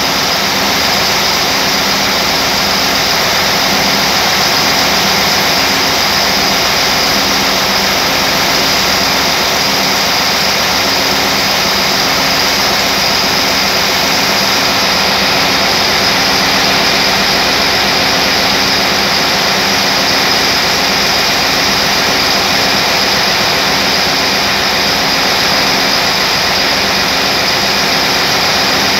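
Large turbocharged engine running steadily at about 900 rpm, a loud, even machinery drone with a steady hum.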